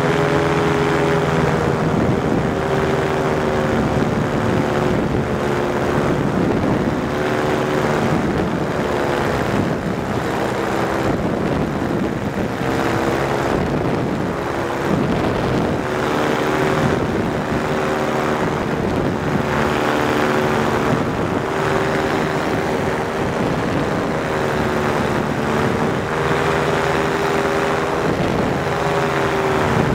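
Powered parachute's engine and pusher propeller running steadily, its pitch wavering up and down a little, while the craft descends to the runway and touches down.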